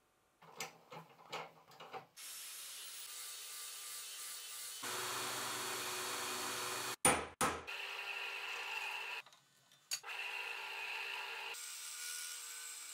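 Metalworking power tools in short cuts: a few light clicks of small steel parts being handled, then an electric bench belt grinder grinding a steel part, and near the end a drill press boring into a steel block. Each tool's sound starts and stops abruptly, with a few sharp knocks about halfway through.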